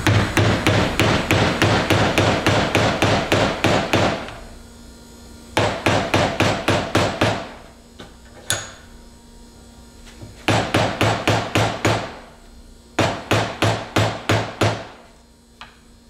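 Rapid hammer blows, about four a second, in runs of a few seconds with short pauses, driving a flathead screwdriver into the cut crimp ferrule of a hydraulic hose fitting clamped in a vise, to break the ferrule loose from the fitting.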